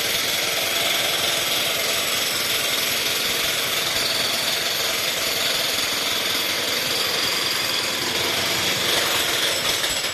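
Jackhammer hammering continuously, breaking very hard rock, with a dense rapid rattle that stops at the very end.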